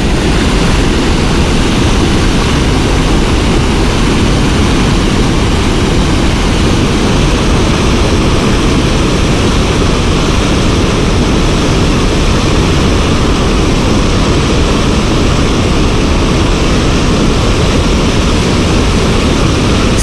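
Water pouring over a low dam spillway close by: a loud, steady rushing noise that does not change.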